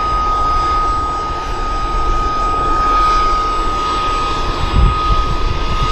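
Boeing CH-47F Chinook's gas-turbine auxiliary power unit running on the ground with the rotors stopped: a steady high whine over a broad rushing noise. It powers the hydraulics for the pre-flight flight-control check. There is a brief low rumble about five seconds in.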